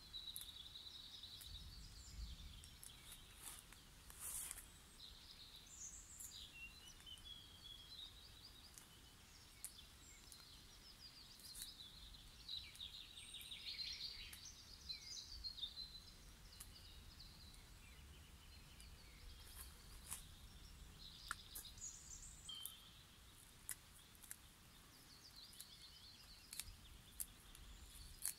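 Faint birdsong: small birds singing trills and chirps, with scattered light clicks.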